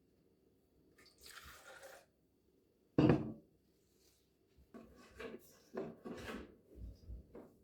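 Household items being handled in a kitchen: a short hissing rustle about a second in, one sharp knock about three seconds in, then a run of light knocks and clatters.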